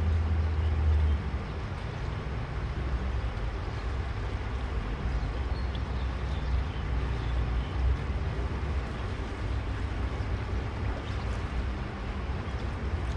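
Steady rush of flowing river water, with a low rumble underneath.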